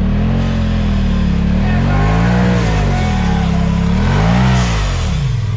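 Can-Am Maverick side-by-side's engine revving up and down three times as it drives through deep mud.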